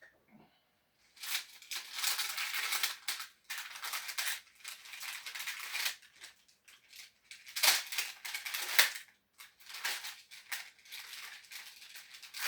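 Packaging rustling and crackling as it is handled and pulled off a newly unboxed bass guitar, in irregular bursts with a couple of sharper crackles midway.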